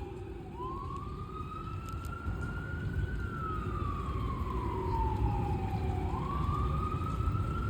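An emergency vehicle siren wailing in slow sweeps: it rises for about two and a half seconds, falls for about three, then starts rising again. A low, steady rumble runs under it.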